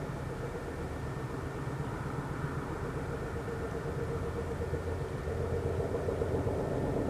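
A loud, low pulsating knocking drone with a steady hum, from an unidentified source, growing louder toward the end.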